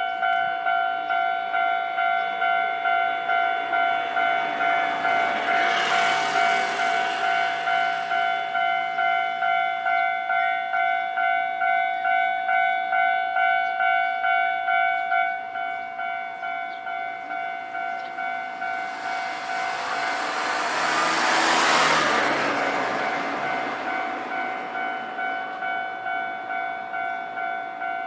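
Japanese railway level-crossing alarm bell ringing in a steady repeated clang, about two strokes a second, getting quieter about halfway through. A train rushes past about six seconds in, and a louder one passes about twenty to twenty-four seconds in.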